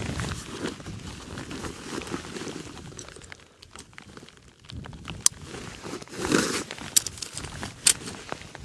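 Rustling and crinkling of an MLD pyramid tent's fabric being handled while it is pitched, with footsteps and scattered sharp clicks. It goes quieter briefly near the middle, and there is a louder rustle about six seconds in.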